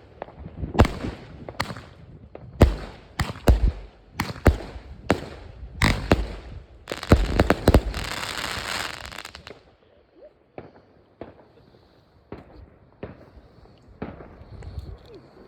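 Fireworks going off in quick succession: a string of loud, sharp bangs, then a dense crackling stretch about seven to nine seconds in. After that the bangs turn fainter and sparser.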